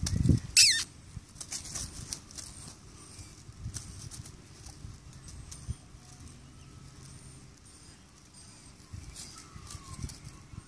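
Light rustling from a feather wand toy and a kitten moving on grass, with faint bird calls in the background. About half a second in, one loud, sharp whistle falls steeply in pitch.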